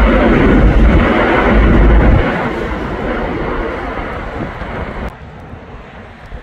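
Jet noise from a British Airways Airbus A350's two Rolls-Royce Trent XWB engines as the airliner climbs away: loud at first, with a heavy low rumble that stops about two seconds in, then fading steadily. The sound drops suddenly near the end.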